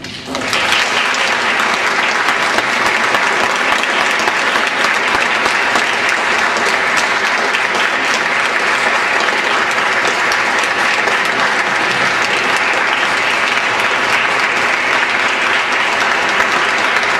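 Audience applauding: steady, dense clapping from a roomful of people, starting about half a second in.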